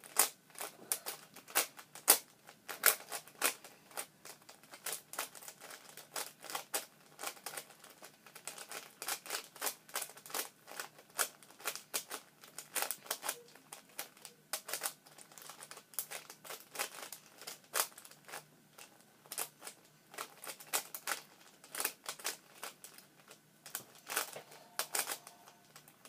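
Plastic speed cube being turned fast by hand: a quick, irregular run of clicks and clacks as its layers snap round.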